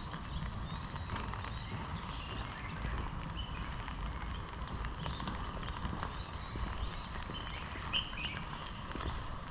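Footsteps of someone walking along a forest path, with small birds chirping in short, scattered calls.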